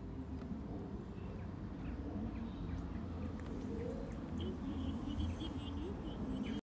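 Outdoor ambience with a steady low rumble and faint small birds chirping, a few chirps together near the end. The sound cuts off suddenly at the end.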